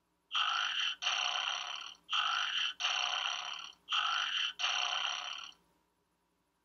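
Chatsters talking doll's small speaker playing a snoring sound effect: three snores, each a short noisy breath followed by a longer one, with the doll's eyes lit and shut.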